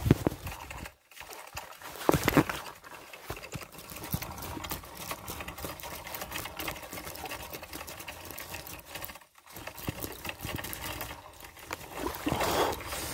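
Close handling noise of hands working fishing gear right at a chest-worn microphone: a steady run of fast, dense clicking and rustling, with a few louder knocks near the start and again near the end.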